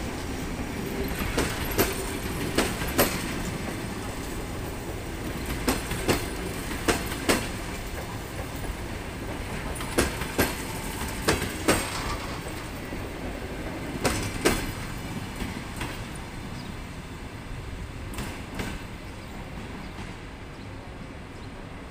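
Passenger train coaches rolling past, their wheels clicking over rail joints, often in quick pairs, above a steady rumble. Late on, the clicks thin out and the rumble fades as the last coach pulls away.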